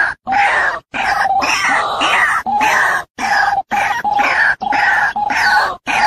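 White-breasted waterhen calling: a loud, unbroken run of repeated 'ruak-ruak' calls, about two a second, cut by several abrupt short silent gaps.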